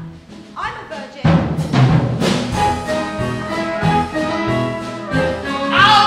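Musical-theatre band music from a stage show, with the full band coming in loudly and suddenly about a second in and playing on.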